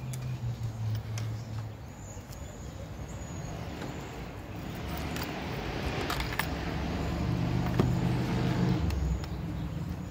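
A motor vehicle passing by, its noise swelling to a peak about six to eight seconds in and then easing off, over a low steady engine hum.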